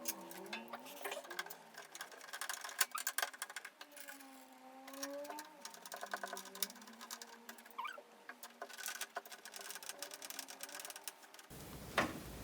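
Small irregular clicks and scratches of screws being driven through a PC case fan into the metal case with a hand screwdriver.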